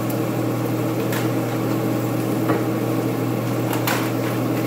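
Steady low hum of a kitchen appliance motor or fan, with a few light clicks as a plastic mushroom container is handled.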